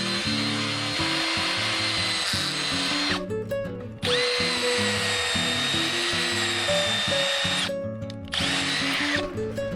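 Power drill running at a steady high speed with a constant whine, in three runs. It stops for about a second just after three seconds in and again briefly near eight seconds, each time starting straight back up. Background music plays underneath.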